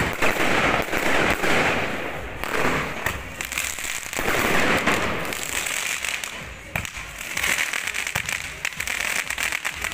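Fireworks and firecrackers going off in a dense barrage: rapid bangs and pops with spells of thick crackling.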